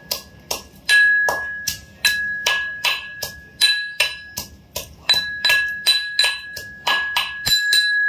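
Metal pestle pounding in a metal mortar, about three strikes a second, each strike leaving a bright metallic ring: garlic being crushed.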